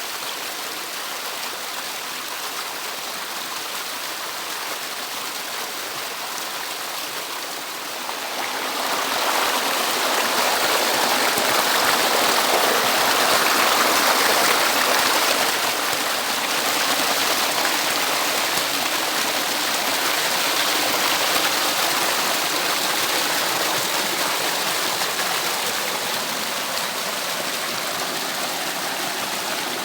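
Water cascading over rocks in a running stream, a steady rush that grows louder about eight seconds in.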